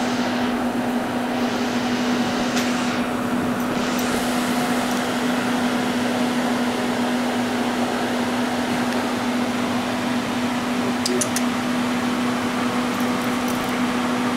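Steady machine whir with a constant low hum, from a running household machine such as a fan. A few faint ticks come about eleven seconds in.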